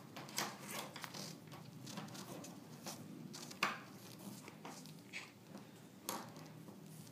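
Faint handling noise from nitrile-gloved fingers turning the metal clamping screws of a microfluidic chip holder: scattered light clicks and rustles, with a sharper click about three and a half seconds in and another about six seconds in.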